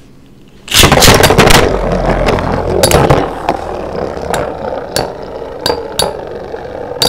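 Two metal Beyblades, Galaxy Pegasus W105R2F and Flame Byxis 230WD, launched together a little under a second in, then spinning and scraping against each other with sharp clacks as they collide, slowly getting quieter.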